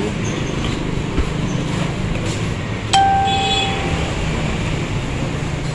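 Steady low background rumble, with one sharp metallic clink about three seconds in that rings on for about a second.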